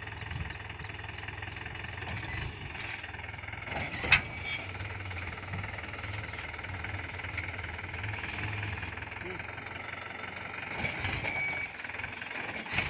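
Mahindra 575 tractor's four-cylinder diesel engine running steadily while its hydraulic tipping trailer is raised to dump manure. One sharp knock stands out about four seconds in.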